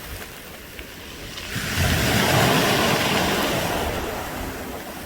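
A wave washing up a pebble beach and drawing back, the rounded stones rattling in the water. It swells about a second and a half in, is loudest around the middle, then fades over the next couple of seconds.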